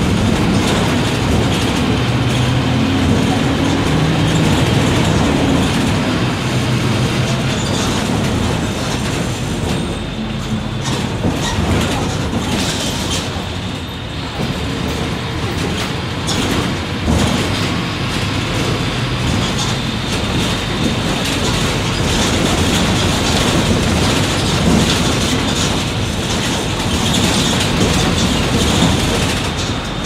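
Mercedes-Benz OM-924 LA four-cylinder inline turbodiesel of an OF-1722M city bus running while the bus drives, its engine note shifting up and down in pitch, with steady rattling and clatter from the bus body.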